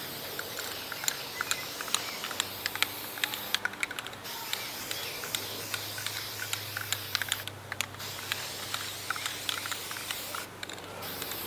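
Aerosol can of copper spray paint hissing in long bursts that break off briefly three times, with scattered light clicks throughout.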